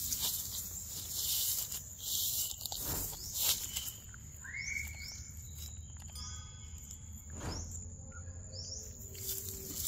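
Rustling and snapping of grass and leaves for the first few seconds. From about four seconds in comes a short added outro jingle of sliding and chiming tones.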